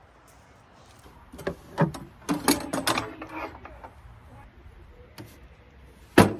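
Plastic folding table with metal legs being unfolded: a quick run of metal clanks and rattles as the legs swing out, then one sharp clack near the end.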